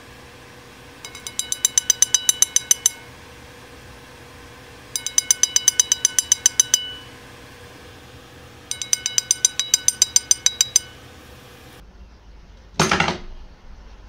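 A green-cheeked conure's beak tapping rapidly on a ceramic plate, about eight taps a second, in three runs of about two seconds each, the plate ringing with every tap. Near the end, one short loud thump.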